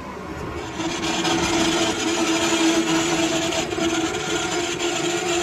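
Lathe cutting tool scraping into a steel gear blank: a steady cutting noise with a sustained tone, starting about a second in.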